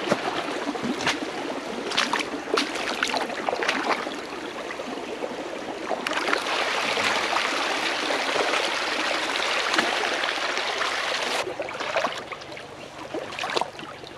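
Floodwater rushing down a woodland trail as a running stream, with several short knocks in the first few seconds. The rush grows fuller about six seconds in and drops away sharply near the end.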